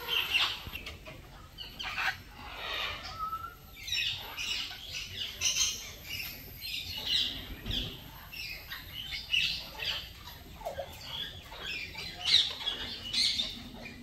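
Parrots chirping and squawking: a steady run of short, high-pitched calls, several a second, with brief gaps.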